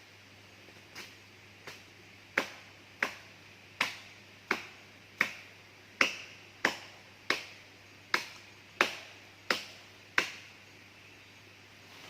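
A steady series of sharp knocks, about one every two-thirds of a second, each ringing briefly. They start faint, become loud and even for about a dozen strikes, and stop shortly before the end.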